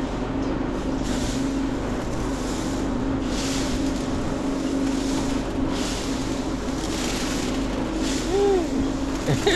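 Posho mill grinding maize: a steady mechanical hum with a constant low tone under a rushing noise that swells every two or three seconds.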